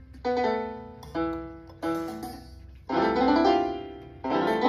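Electronic kalimba set to its piano voice, keys pressed one at a time: a slow run of single piano-like notes, each struck and fading, with several notes sounding together about three seconds in.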